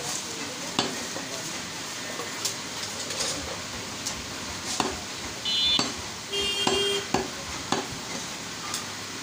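Butcher's knife cutting beef on a wooden log chopping block: sharp taps of the blade against the wood about once a second over a steady background hiss. About halfway through, two brief high-pitched tones stand out as the loudest sound.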